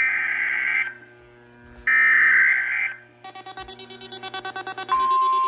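NOAA Weather Radio SAME header: two one-second bursts of screechy digital data tones about a second apart, the last of the three header bursts that open the Required Weekly Test. A little after three seconds in, a fast pulsing electronic beep starts. Near the end a steady 1050 Hz warning alarm tone begins.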